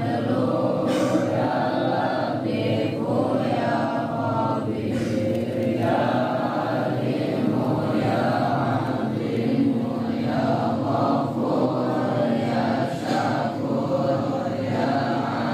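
A congregation of men and boys chanting together in unison, a continuous sung devotional chant of the kind performed while waiting for prayer.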